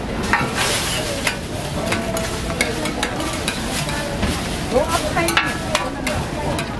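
Sorghum pancakes (susu-bukkumi) frying in oil on a flat metal griddle: a steady sizzle, dotted with frequent short clicks and scrapes of a metal spatula.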